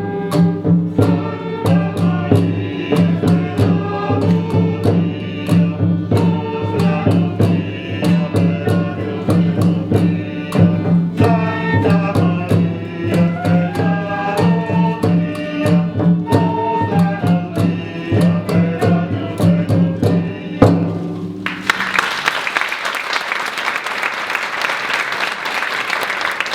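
Live early-music ensemble playing a medieval-style piece: a held low drone under a moving melody, with a steady drum beat. The music ends about 21 seconds in and audience applause follows.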